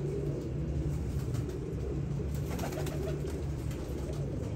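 Pigeons cooing, a steady low warbling coo.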